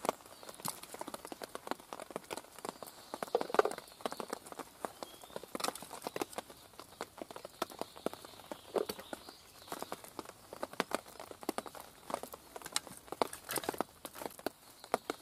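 Split wooden sticks knocking and clattering against each other as they are picked through and sorted by hand: a scatter of irregular knocks, with a louder thump about three and a half seconds in.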